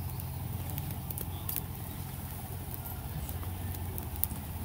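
Wood fire catching in a small fire stand, with scattered faint crackles and pops over a steady low hum.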